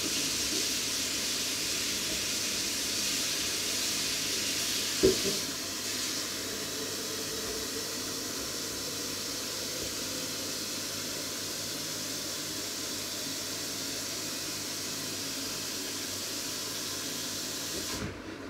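A steady hiss that cuts in just before and stops abruptly near the end, louder for the first five seconds and a little softer after, with a single short knock about five seconds in.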